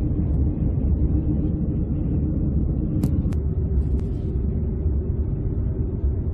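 Steady low rumble of road and engine noise inside a moving car's cabin, with a few light clicks about three to four seconds in.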